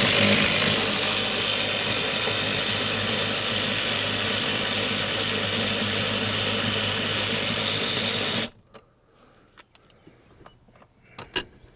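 Cordless impact wrench with a 10 mm socket running steadily for about eight and a half seconds, backing a seat-rail bolt out, then cutting off suddenly. A few faint clicks and knocks follow.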